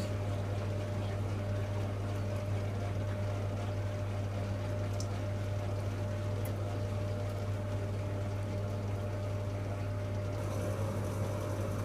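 Hoover Logic A3790 washing machine draining: a steady pump hum with water running through. A rising motor whine begins near the end as the drum starts to speed up for the spin.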